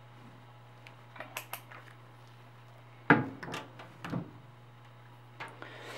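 Light clinks and clatter of objects being handled, with a louder cluster of knocks about three seconds in, over a steady low hum from the powered-up laser cutter.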